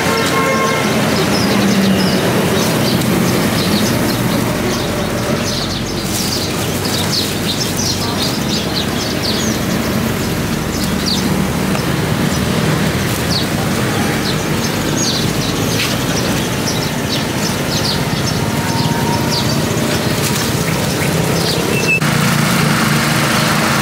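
Busy street ambience: a steady hum of vehicle engines and traffic, with many short, high-pitched chirps scattered over it.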